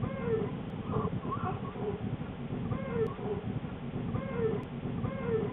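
Newborn black bear cubs in the den giving short, squeaky, meow-like cries about once or twice a second, over a steady low, rapidly pulsing hum typical of nursing cubs.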